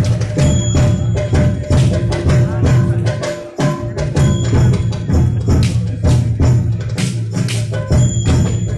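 Live percussion accompaniment on barrel drums, a fast, steady run of drum strokes with a short break just past the middle.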